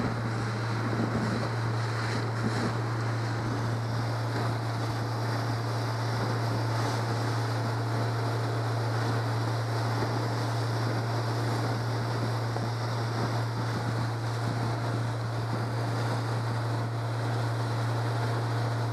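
Yamaha 70 hp four-stroke outboard running steadily under way at about 11 mph, a low even drone, with wind on the microphone and water rushing past the hull.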